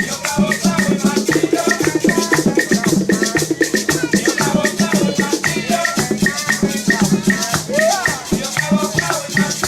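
Up-tempo music starting abruptly, led by fast maraca shaking over percussion and pitched instrument notes.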